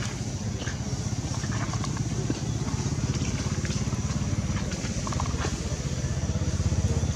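A motor running at low revs: a steady, low, evenly pulsing rumble that grows a little louder near the end.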